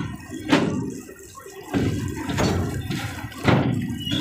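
Freight train wagons rolling past close by: steel wheels rumbling on the rails, with heavy clunks about once a second.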